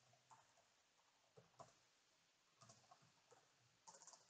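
Faint typing on a keyboard: a dozen or so soft key clicks at an uneven pace, with short pauses between runs of keystrokes.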